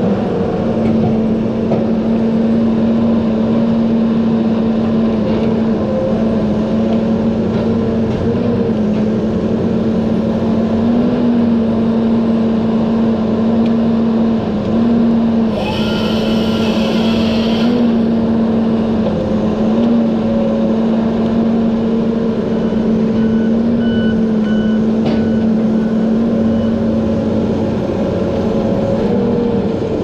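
Diesel engine of a Tigercat knuckleboom log loader running steadily at high revs as the boom works. A brief loud hiss comes a little past halfway, and faint short beeps sound a few seconds later.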